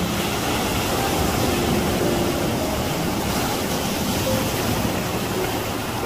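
Ocean surf: waves breaking and washing in over a rocky shore in a steady, dense rush.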